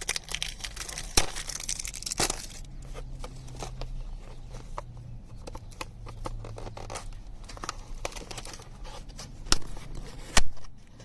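Flashlight packaging being torn open and handled by hand. Dense tearing for the first couple of seconds, then lighter crinkling with scattered sharp clicks, and two louder snaps near the end.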